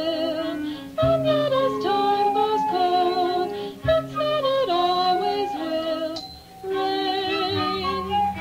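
A 1970s jazz-fusion band playing live in an instrumental passage: a lead melody line over held low bass notes, the melody wavering in pitch near the end.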